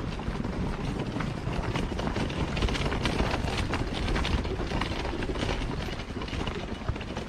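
Footsteps of a person walking along a forest trail and onto a wooden footbridge, many irregular crunches and taps over a steady low rumble.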